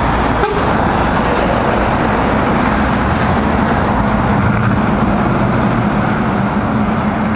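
Scania 164 580 tractor unit's V8 diesel engine running as the truck drives past and away, a steady low engine note under road noise.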